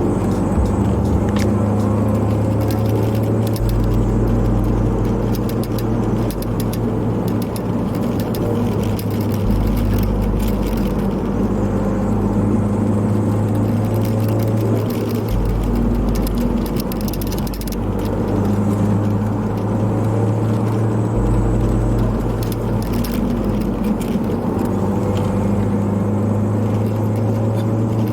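Ford Focus ST's turbocharged four-cylinder running under way, heard from inside the car with tyre and road noise and the clips of a camera strap rattling and clicking against the mount, under a lo-fi hip-hop track whose bass notes change every few seconds.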